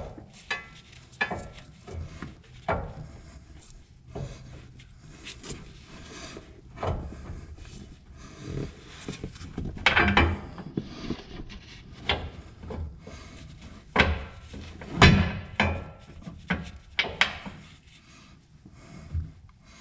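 Irregular metal clunks, knocks and scraping as hardware is worked into a snow plow mount bracket against a pickup's steel frame, the loudest knocks about ten and fifteen seconds in.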